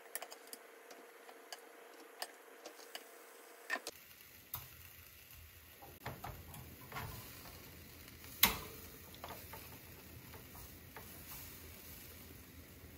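Metal tongs clicking and tapping against a stainless-steel wire grill basket as pieces of marinated chicken are laid on an electric grill, over a faint sizzle. One much louder metal clack a little past halfway.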